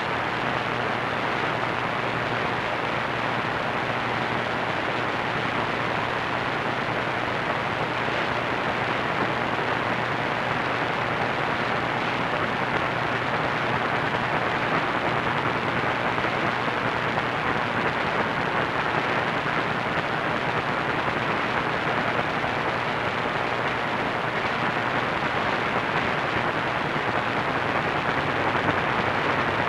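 AM radio receiver tuned to a distant station on 1490 kHz giving steady static hiss, with a faint low hum underneath. The station's programme is not heard through the noise.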